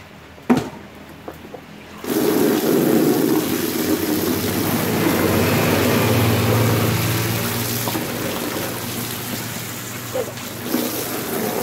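Tap water gushing onto a painted carpet dance prop as it is rinsed and scrubbed by hand. The water starts suddenly about two seconds in and runs steadily. A single sharp knock about half a second in.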